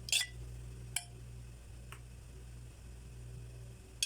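A few light metallic clicks and clinks of a kitchen utensil, about a second apart, over a steady low hum.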